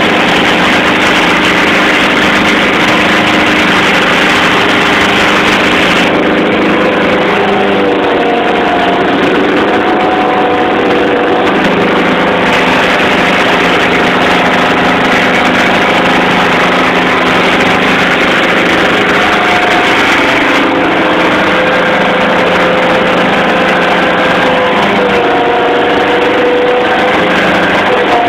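A fishing boat's engine running steadily under way, heard loud from inside the wheelhouse, its pitch dipping and rising slightly a few times.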